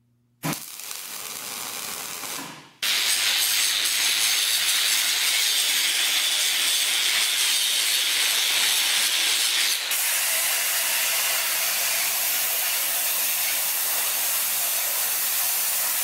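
An electric welder hissing as it tacks expanded-metal mesh to a steel basket frame. About three seconds in, an angle grinder takes over, grinding the steel for several seconds with a low motor hum under the hiss. About ten seconds in, a steady welding hiss returns.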